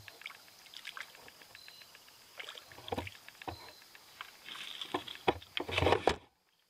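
Hooked rock bass thrashing and splashing at the water's surface as it is pulled up on a hand line, in irregular bursts. The splashing is loudest near the end and cuts off suddenly.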